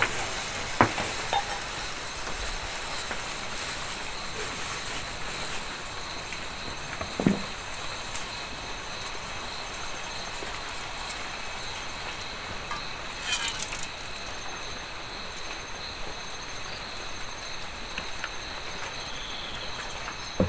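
Steady hiss of a portable butane gas stove burner under an aluminium pan, with insects chirping steadily behind it. A few light knocks come from handling the pan and the oil bottle, the clearest about seven seconds in.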